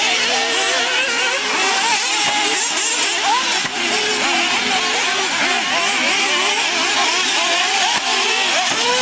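Several nitro RC buggies' small two-stroke glow engines running together, a buzzing that keeps rising and falling in pitch as each one revs up and backs off, the lines overlapping.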